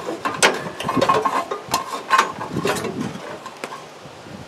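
A smoker's control panel being pulled out of its metal housing, with its wires: irregular clicks, knocks and rattles that die away near the end.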